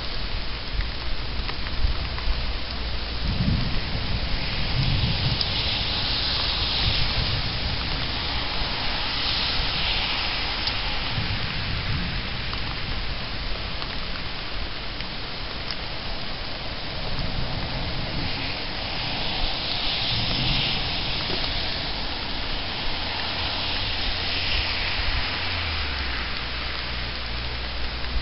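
Steady heavy rain, with low rumbles of thunder rolling in a few times.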